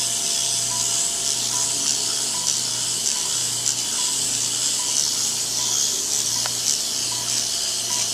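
Power-assisted liposuction handpiece running. Its motor gives a low hum that swells and fades with each stroke of the cannula, over a steady hiss of suction drawing out the liquefied fat. A short high beep repeats about every 0.8 seconds.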